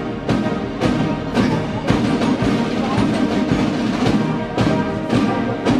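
Orchestral background music with a regular percussion beat, about two strikes a second.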